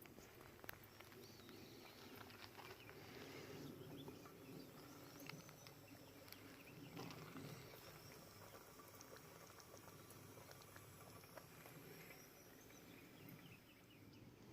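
Near silence: faint outdoor ambience with a few soft high chirps, like distant small birds, and scattered light clicks.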